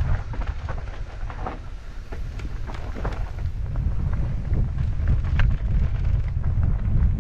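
Wind buffeting the microphone of a camera on a mountain bike riding down a rough trail, a steady low rumble, with frequent clicks and rattles from the bike over the rough ground.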